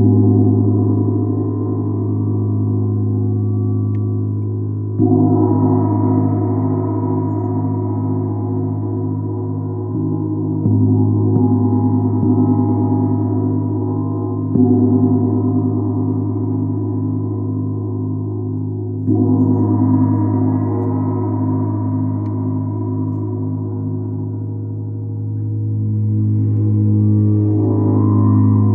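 30-inch Lavender Moon gong struck with a soft felt mallet about every four to five seconds. Each stroke renews a low, continuous ring with a slow wavering pulse that never dies away between strokes. Near the end the sound swells up gradually rather than with a single strike.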